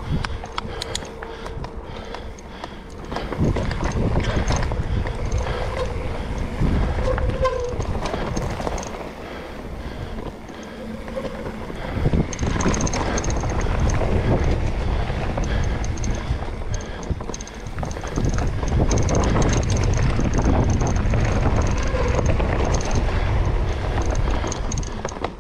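Mountain bike riding down a dirt singletrack: tyres rolling over dirt and dry leaves and the bike clattering over bumps, with wind buffeting the camera microphone. The noise swells and eases with the terrain.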